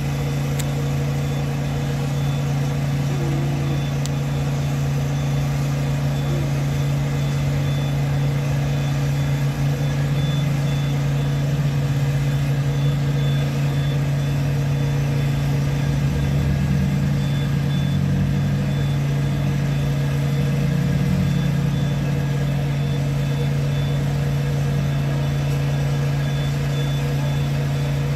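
An engine running steadily with a deep, even hum, with a faint high beep sounding on and off over it.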